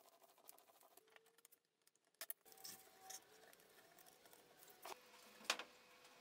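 Near silence with a few light clicks and taps, the loudest about five and a half seconds in: small metal hanging hardware being handled and set on the back of a wooden picture frame.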